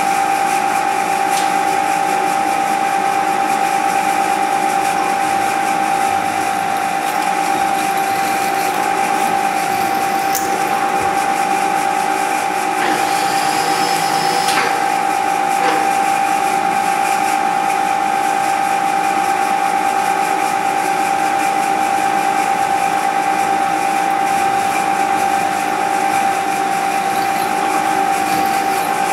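Milling machine spindle running steadily while a small twist drill bores a hole in a metal part, a constant whine with a brief higher squeal about halfway through.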